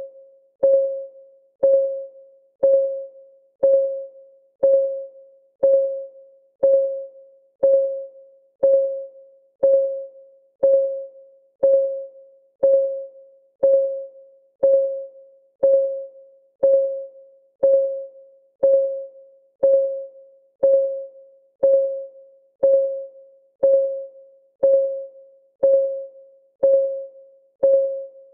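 Countdown timer's clock ticking sound: one tick a second, each a sharp click with a single mid-pitched ringing tone that dies away within about half a second, evenly repeated.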